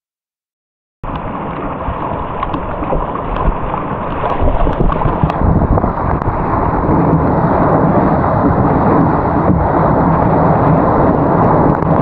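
Loud rush of churning surf water and wind noise on the camera microphone as a surf kayak rides through breaking whitewater; it starts suddenly about a second in and builds slightly louder.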